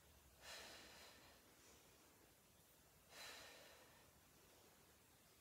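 A woman's faint, hard exhales, once with each knee push-up: two short puffs of breath about two and a half seconds apart, each fading away over about a second.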